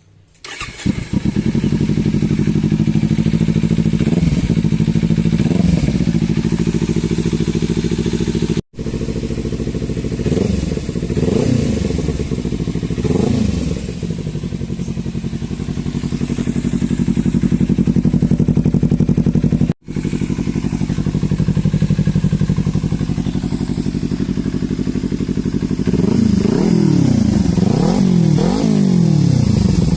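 Kawasaki Z300's parallel-twin engine running through an Akrapovic exhaust, coming in about half a second in and idling steadily, with quick throttle blips several times and a rapid burst of revs near the end. The sound cuts out for an instant twice.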